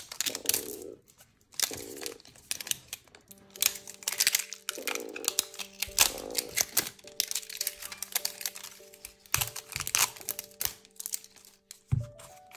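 Thin plastic toy wrapping crinkling and crackling in irregular bursts as a layer is peeled off by hand. Background music with sustained tones plays underneath.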